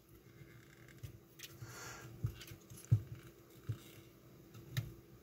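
Faint handling sounds of an Arduino Nano being worked loose from header pins on a circuit board: about half a dozen soft clicks and taps spread out, over a faint steady hum.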